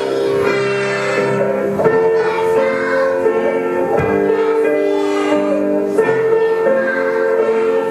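Song accompaniment music with held keyboard-like notes and singing mixed in.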